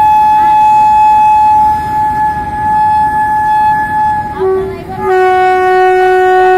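Electric locomotive's horn sounding a long steady blast on one high note, then, about four seconds in after a brief break, a lower note. The rumble of the passing freight wagons runs underneath.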